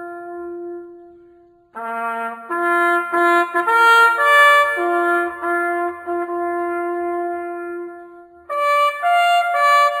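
Solo trumpet playing a slow bugle call. A long held note fades away, then a new phrase of held and shorter notes begins just before two seconds in. After a brief break near eight seconds the call goes on with quicker notes.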